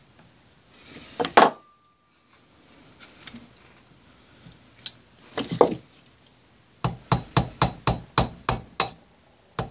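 A quick run of about ten sharp taps, roughly five a second, near the end: a Honda Rebel 250 cylinder block being knocked down over the pistons and ring band clamps. A single louder clatter of handling comes about a second in.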